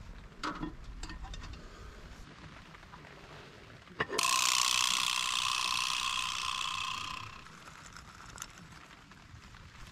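Petromax cast-iron Dutch oven being handled: light clinks as it is set down, then about four seconds in a knock and a grating, ringing scrape of the cast-iron lid against the pot's rim that lasts about three seconds before fading.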